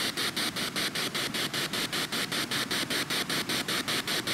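Spirit box sweeping through radio stations: a fast, even stutter of static, about eight bursts a second.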